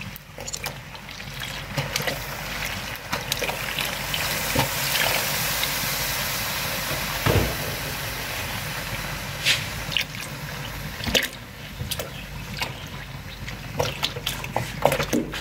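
Milk being poured from a packet into a pot of grated carrots and softened rice: a steady liquid pour and splash, with a few light knocks.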